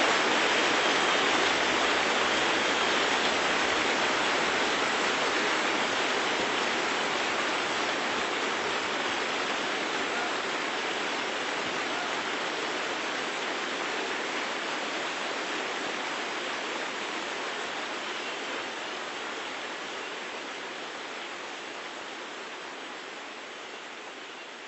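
Large concert audience applauding, a dense, even clatter of many hands that slowly fades away.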